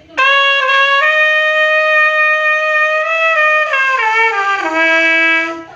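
A valved brass horn played solo. It opens on a short note, steps up about a second in to a long held high note, then falls note by note to a lower held note that cuts off near the end.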